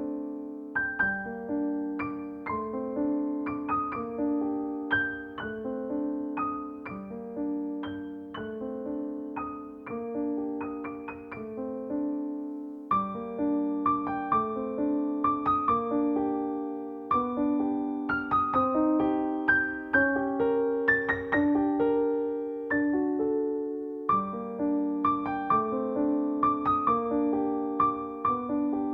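Soft background piano music: gentle repeated notes and chords in a slow, calm pattern, with a brief pause about twelve seconds in.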